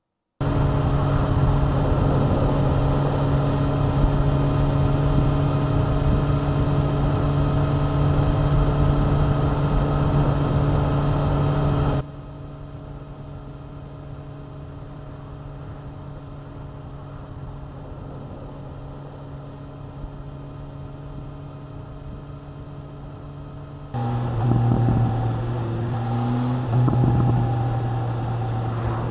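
Motorcycle riding sound picked up by a clip-on mic in the rider's pocket: a steady engine drone with wind and road noise. The level drops sharply about 12 seconds in and jumps back up about 24 seconds in, where the engine note wavers with changes in speed.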